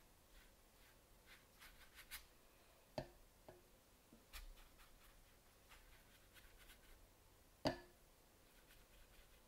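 Quiet, soft strokes of a watercolor brush on paper, followed by a few small clicks and taps, the loudest about three-quarters of the way through.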